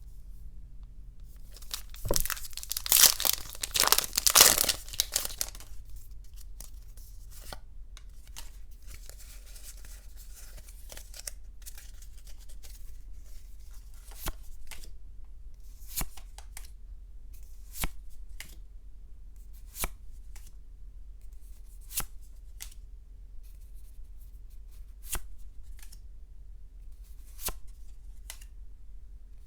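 A foil Pokémon TCG booster pack being torn open in a few loud rips, followed by faint wrapper crinkling. After that come single sharp card snaps, about one every two seconds, as the cards are flicked through one by one, over a low steady hum.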